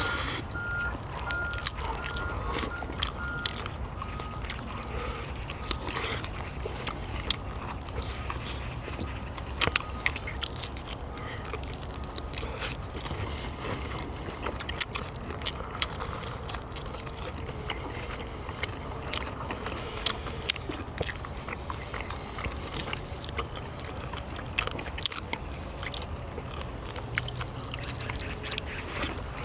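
People eating marinated beef short ribs and noodles: chewing sounds and scattered sharp clicks, over a steady low background rumble.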